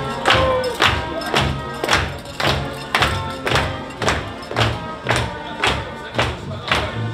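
Upbeat dance music with a steady kick drum at about two beats a second, a bass line and light percussion.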